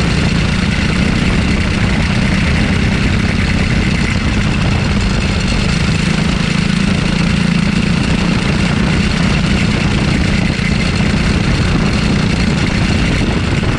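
Racing kart's single-cylinder engine running at a fairly steady pitch, heard close up from the kart itself, with only small rises and dips in engine speed through the corner.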